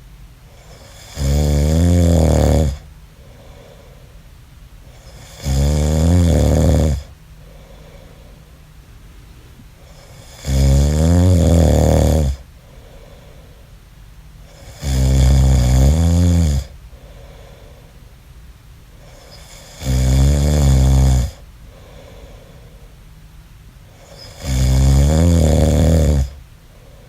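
A man snoring in a steady rhythm: six loud snores about every five seconds, each lasting about a second and a half, with faint breathing out between them.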